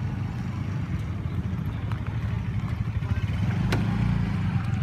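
Vehicle engine running steadily with a low rumble, getting a little louder in the second half, with a sharp knock about three and a half seconds in.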